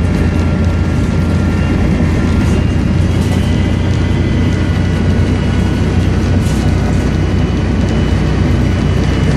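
Volvo Olympian double-decker bus's turbocharged diesel engine running steadily, a loud low drone with a high turbo whistle held over it.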